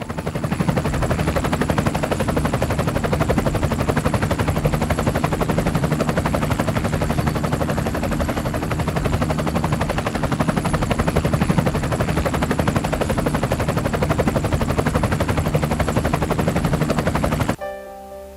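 Loud, dense rapid-fire rattling noise over a steady low hum, fading in at the start and cutting off abruptly near the end. A few piano notes follow.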